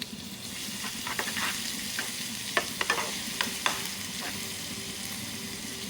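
Garlic sizzling in hot olive oil in a pan, a steady hiss, with a utensil stirring and clicking against the pan several times in the middle.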